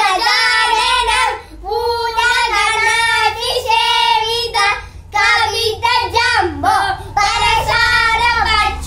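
Two children singing a school prayer song together, in phrases with short breaks between them.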